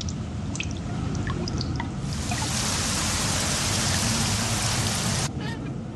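Rain and wind storm sound effect: steady rain with a low rumble of wind and scattered drips. About two seconds in, a loud hiss of heavier rain comes in, then cuts off suddenly a little after five seconds.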